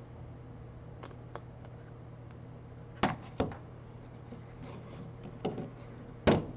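A few separate sharp clicks and knocks from small tools and phone parts being handled on a repair bench, the loudest near the end, over a steady low hum.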